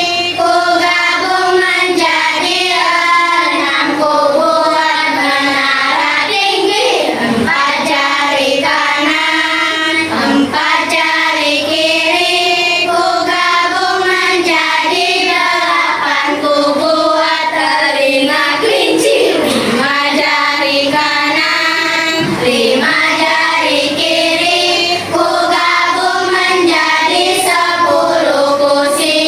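Children's voices singing a song together.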